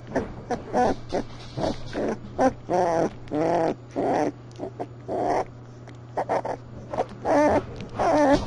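A litter of two-week-old English Bull Terrier puppies crying and whining in a quick string of short, high-pitched calls, with a faint steady hum underneath.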